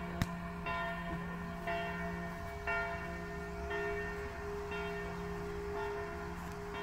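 A bell tolling about once a second, each stroke ringing on into the next over a steady low hum. A single sharp knock comes just after the start.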